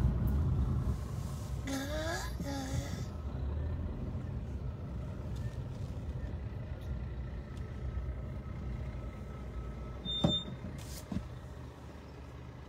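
Deep engine rumble of a tanker lorry passing close by, slowly fading away. A short sharp click sounds about ten seconds in.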